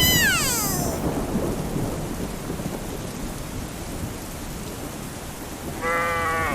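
A falling whistle-like glide, then a rumble with a rain-like hiss that slowly fades, like a thunderstorm sound effect; near the end a short steady tone sounds.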